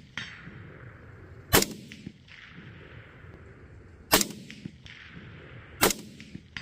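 Three single shots from a budget polymer-built AR-15 rifle, spaced a couple of seconds apart. Each is followed a little over half a second later by a faint distant clang: the bullet hitting a steel target at 200 yards.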